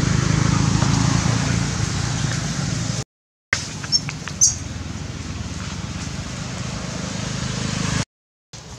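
A steady low mechanical rumble with hiss that drops out abruptly to dead silence twice. A few brief sharp clicks and a short high squeak come about four seconds in.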